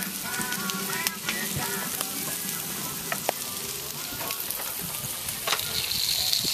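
Bacon strips sizzling on a portable grill's griddle plate, a steady hiss with scattered sharp pops and crackles; the sizzle gets louder near the end.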